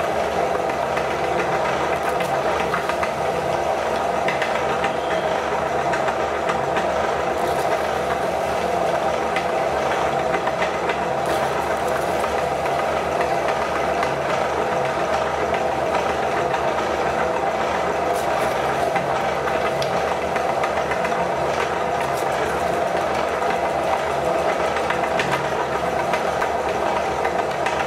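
Electric meat grinder running steadily, its auger grinding chocolate wafers and pressing them out through the cutting plate.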